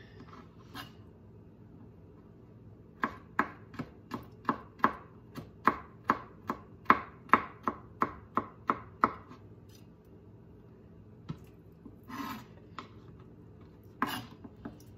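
Chef's knife chopping dill pickle on a plastic cutting board: a run of about seventeen sharp knocks at roughly three a second, then a few scattered knocks and a short scrape near the end.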